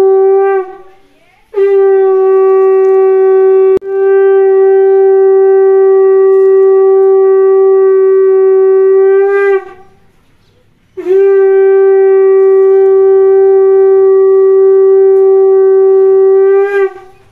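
Conch shell (shankha) blown in long, steady, loud blasts, each ending with a slight upward bend in pitch. One blast ends under a second in, a second lasts about eight seconds with a momentary break partway, and a third lasts about six seconds. It is blown during the Bhai Phota ritual, as at auspicious moments of Bengali ceremonies.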